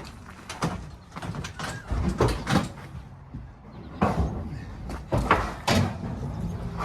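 A string of irregular knocks and clattering bangs: hard objects being handled and set down while a storage unit is sorted, the loudest about four and five seconds in.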